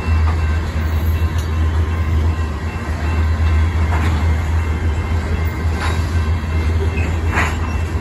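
Covered grain hopper cars of a long freight train rolling past: a steady low rumble of wheels on rail, with a few brief higher scrapes in the second half.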